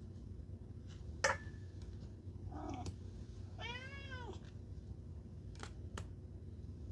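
A domestic cat meows: a short call about two and a half seconds in, then a longer meow that rises and falls in pitch. Sharp clicks come about a second in, the loudest sound here, and twice near the end.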